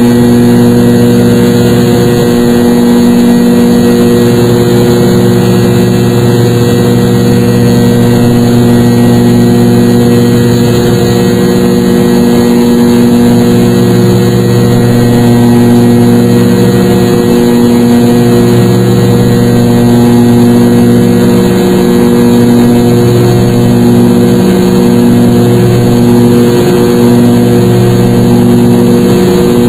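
Jet airliner engines running at high power, heard from inside the passenger cabin: a loud, steady drone with several held tones, the low hum slowly swelling and fading every couple of seconds.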